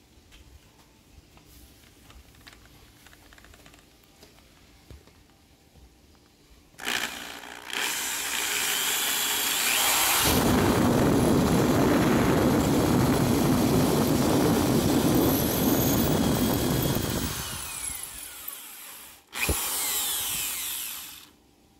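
Power drill with a masonry bit drilling into the ceiling. It starts about seven seconds in, runs steadily and heavier for several seconds, winds down, then gives a second short burst near the end before stopping.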